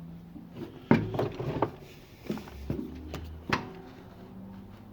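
A string of sharp clicks and clunks, about seven over three seconds, from handling in the cab of a Deutz-Allis 6260 tractor that has no electrical power at all.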